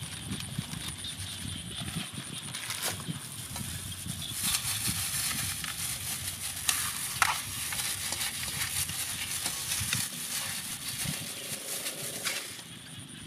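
Gloved hand rubbing salt over a raw whole chicken in an aluminium basin: gritty scraping and crinkling of the plastic glove, with a few sharp clicks.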